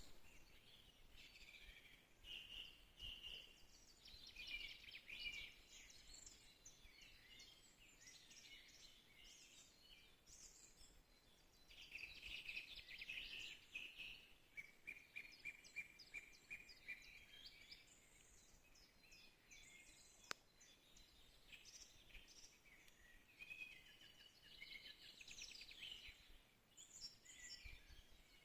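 Faint forest birdsong: several birds chirping and singing short trilled phrases that overlap one another, including a quick series of repeated notes around the middle. A single sharp click about twenty seconds in.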